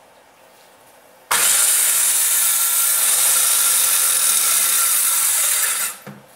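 Makita circular saw running as it is pushed along an aluminum guide track, cutting through a board. It starts abruptly about a second in, runs steadily for about four and a half seconds and stops shortly before the end.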